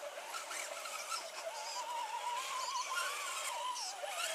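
Electric motor and gear whine of a radio-controlled scale crawler truck creeping up a dirt slope under light throttle, its pitch rising a little and then falling back as the throttle changes.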